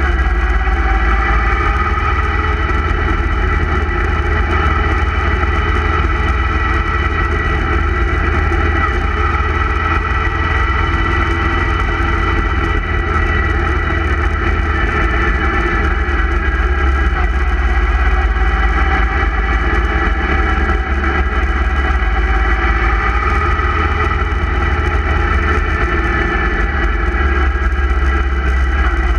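Motorcycle engine running steadily on the move, with a strong steady low rumble underneath and no sudden changes in speed.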